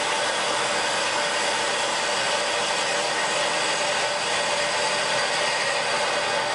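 Mini CNC wood lathe running steadily, spinning a wooden blank while a fine drill bit bores into its end to make the hole of a bead. The machine's sound is a steady whir with several held tones.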